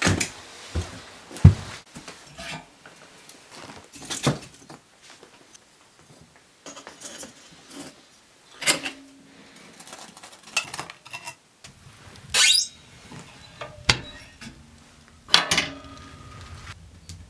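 A wood-burning stove being loaded and lit: irregular metallic clanks and clinks from the stove door and firebox, with knocks of logs and kindling being set in place. A short hiss comes about twelve seconds in.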